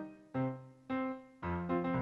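Piano music: a few separate notes or chords struck about every half second, quickening into a faster run near the end.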